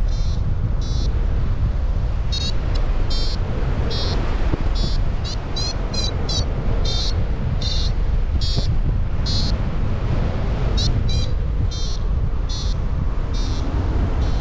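Paraglider's variometer sounding its climb tone: a run of short high beeps, one to two a second and unevenly spaced, with a few quick rising chirps about five to six seconds in, signalling that the glider is climbing in lift. Under it, steady wind noise on the microphone.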